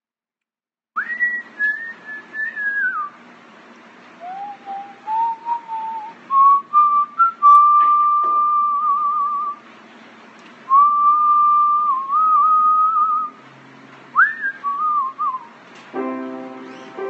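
A man whistling a melody in short phrases of single clear notes, sliding between pitches, with one held note wavering about halfway through. Near the end an instrument starts playing chords.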